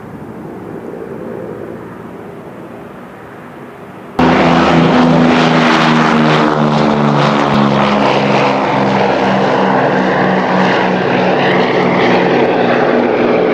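Propeller-driven piston aircraft engines of WWII P-38 Lightning fighters running, heard on an old film soundtrack. About four seconds in the sound jumps suddenly to much louder and stays loud and steady to the end.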